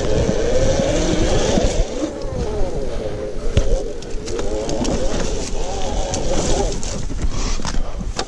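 OSET 24 electric trials bike's motor whining, rising and falling in pitch as the bike rides over a dirt trail, with a few sharp knocks from the bike over the ground. The whine fades near the end.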